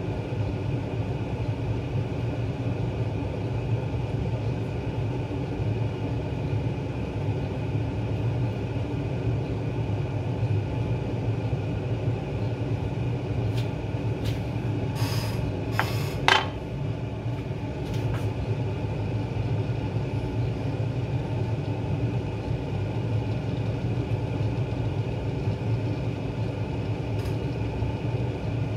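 Steady mechanical hum, unchanging and fairly loud, with a few short sharp clicks or knocks about halfway through.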